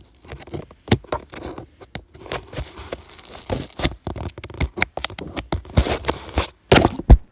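A shipping package being worked open by hand: irregular scraping, crackling and sharp clicks of the packaging, with a few loud knocks near the end.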